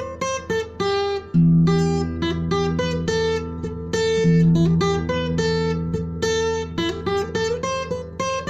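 Instrumental music: a plucked acoustic guitar picking a quick melody over held low bass notes.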